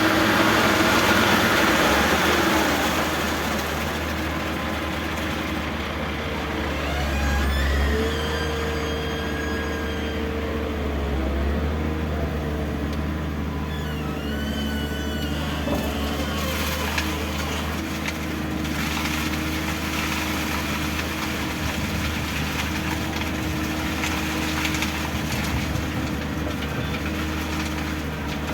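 Heavy construction machinery's engine running steadily, briefly rising under load twice in the first half.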